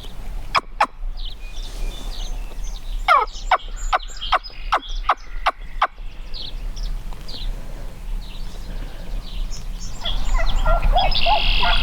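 Turkey calling: a run of about nine sharp yelps, roughly three a second, a few seconds in, then a louder burst of rapid turkey notes near the end.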